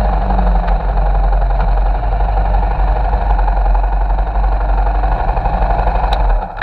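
Motorcycle engines running and then idling as the bike slows to a stop, a steady low rumble close to the microphone. It drops away sharply near the end.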